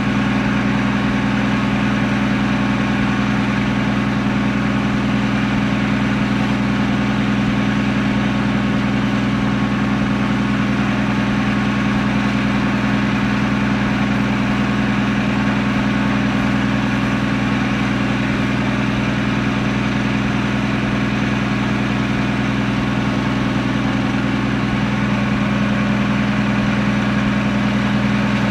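Lull loader's engine idling steadily.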